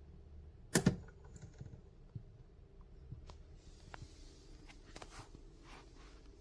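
Clicks and taps from handling a Nespresso Lattissima Pro espresso machine: one sharp clack under a second in, then a scattering of lighter clicks.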